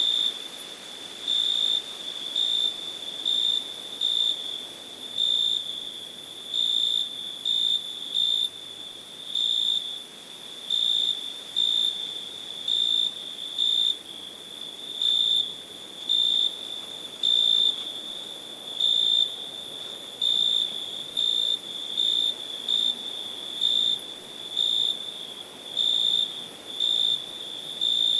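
Crickets chirping: a steady high-pitched trill with louder chirps standing out about once a second, unevenly spaced, over a faint high hiss.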